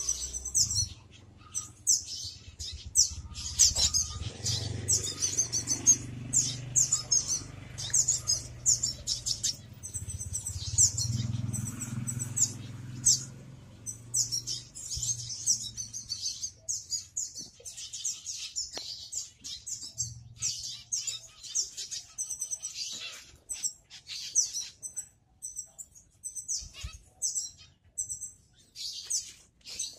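Small finches in a mixed aviary chirping: a steady stream of short, high calls, with repeated call notes that come more evenly spaced in the last third. Beneath them a low steady hum fades out about two-thirds of the way through.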